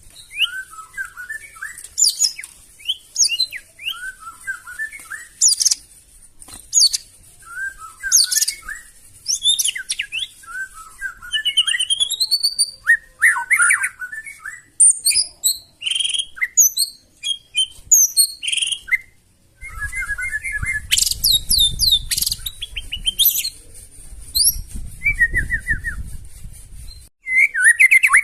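White-rumped shama (murai batu) singing a rapid, varied song of whistled phrases, quick trills and sharp harsh notes, with short pauses between bursts. A low rumble runs under the song for several seconds past the middle.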